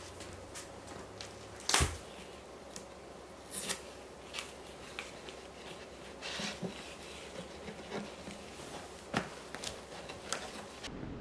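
A cloth wiping a glossy cabinet top: soft rubbing and rustling strokes with scattered light taps and knocks, the loudest a sharp knock about two seconds in.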